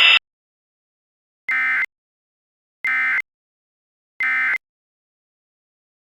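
Emergency Alert System end-of-message tones: three short, identical bursts of buzzing SAME digital data, about a second and a half apart, signalling that the alert has ended.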